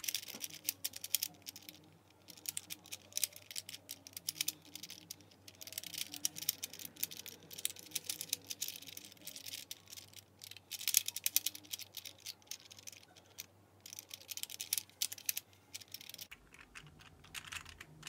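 Plastic cylinder Rubik's puzzle being twisted and slid by hand: quick irregular runs of small plastic clicks as its layers turn and pieces slot into place, with short pauses between runs.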